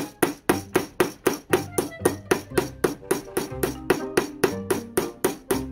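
Small ball-peen hammer tapping a thin steel rotary-tool mandrel against the bench, about four quick, even taps a second, to straighten the mandrel after it buckled from wobbling. Background music plays underneath.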